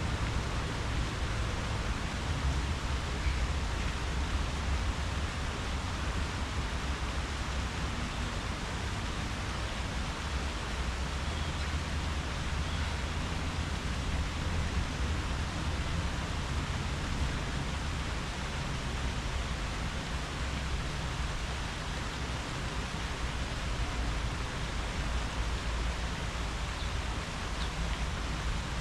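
Wind through tree leaves: a steady rustling hiss with a low, shifting rumble underneath.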